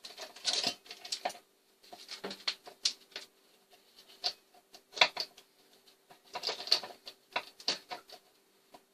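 Metal chainsaw chain clicking and rattling in irregular bursts as it is handled and seated onto the drive sprocket and guide bar.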